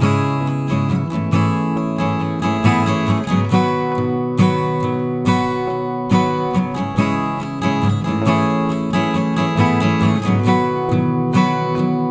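Background music of strummed acoustic guitar with a steady rhythm.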